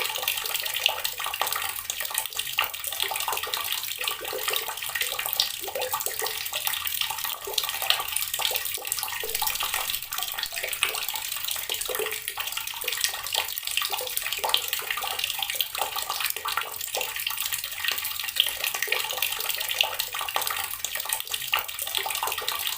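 Water running steadily from a tap and splashing, with many small irregular splashes throughout.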